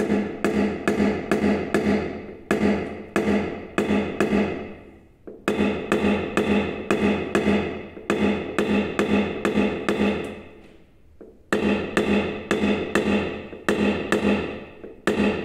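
Paintless-dent-repair tapdown on a car door: a knockdown punch held against the panel is struck with a rod, about four sharp taps a second in runs of a few seconds with short pauses, the longest about ten seconds in. Each tap makes the door panel ring briefly; the taps knock down raised spots to level the panel.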